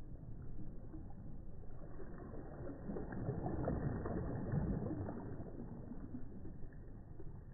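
A small wave breaking softly close up: the wash of water swells about two seconds in, fizzes at its peak in the middle, and ebbs away near the end, over a steady low rumble of surf.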